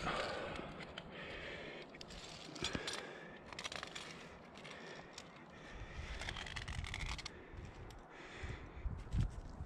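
Scrapes and clicks of a climber's gloved hands and shoes moving on granite, with the light clink of metal climbing gear. A low rumble joins in about halfway through.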